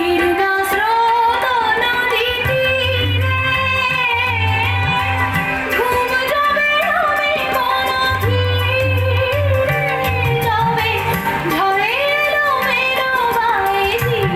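Recorded song for a dance: a woman singing a gliding, ornamented melody over a steady held drone tone and a pulsing low bass.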